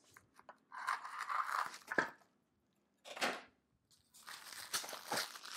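Plastic stretch wrap being cut with scissors and torn and crinkled off a rowing machine's metal support leg, in three rustling, tearing bursts, with a sharp click about two seconds in.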